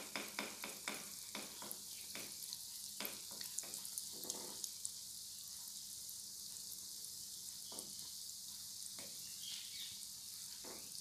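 Sweet-potato gulab jamun balls deep-frying in oil in a wok on a low flame: a steady sizzle with crackling pops, most frequent in the first few seconds, as a wooden spatula turns them in the oil.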